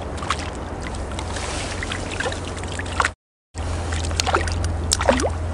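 Hooked fish splashing at the water surface as it is played on a float rod, over a steady low wind rumble on the microphone. The sound drops out completely for a moment about three seconds in.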